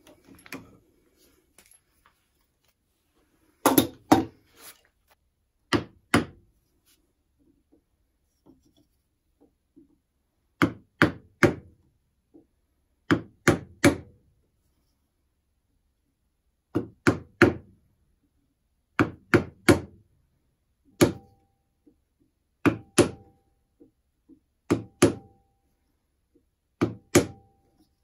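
A wood chisel being struck and driven into a hardwood block: sharp knocks in groups of two or three, a few seconds apart. The later blows leave a brief ring.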